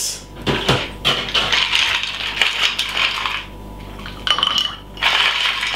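Ice cubes dropped by hand into tall glasses of water, clinking and rattling against the glass in two spells with a short pause between.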